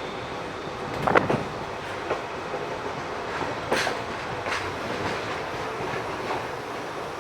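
Freight train rolling past, a steady running noise with a few irregular clacks of wheels over rail joints.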